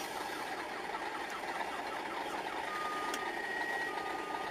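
Electronic car alarm sounding through its cycle, first a fast repeating warble of sliding chirps, then steady high tones about two and a half seconds in, one of them pulsing on and off, over the low run of traffic and engines.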